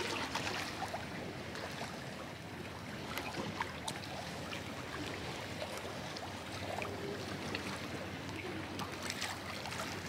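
Sea water lapping and sloshing against a pier: a steady watery wash with small scattered clicks and splashes.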